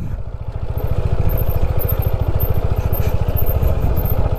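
Single-cylinder motorcycle engine of a TVS Apache 160 4V running steadily with a fast, even pulsing beat.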